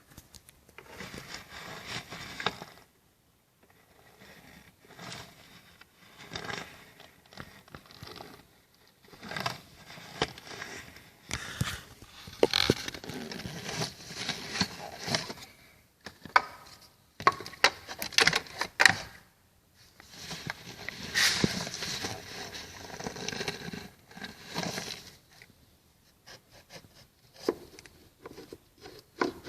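Irregular scraping, rustling and clicking of things being handled, in uneven bursts with short pauses.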